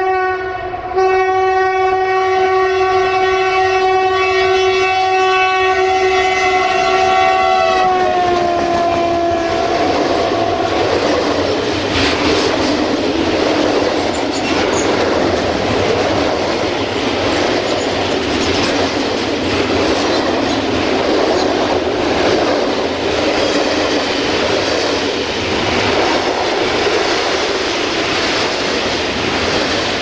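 BR232 'Ludmilla' diesel locomotive sounding a long, single-pitched horn blast with a brief break about a second in; the pitch drops as the locomotive passes, and the horn stops about eleven seconds in. After that, freight wagons roll past with a steady rumble and regular clicking of wheels over rail joints.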